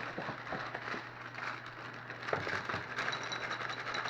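Dry cereal being poured into a bowl: a steady crackling patter of many small pieces landing.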